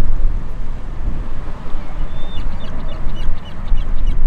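Strong wind buffeting the microphone as a loud, steady low rumble. From about two seconds in, a bird calls repeatedly in short, separate notes.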